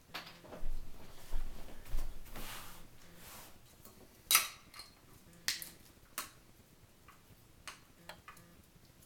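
Handling of a golf driver's head, shaft and parts during a shaft swap: a few seconds of rustling and scraping, then several sharp clicks and knocks, the loudest about four seconds in, followed by fainter ticks.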